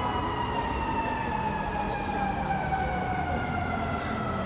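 Emergency vehicle siren in the street, one long tone falling slowly in pitch, over the hum of city traffic.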